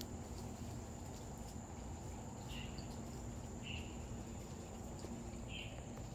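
Quiet outdoor ambience: a steady high-pitched drone over a low rumble, with three or four short high chirps in the second half.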